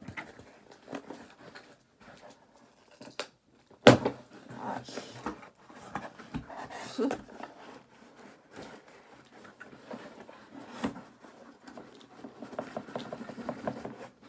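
A small cardboard box being opened by hand: scattered clicks, scraping and rustling of cardboard and packing tape, with one sharp knock about four seconds in.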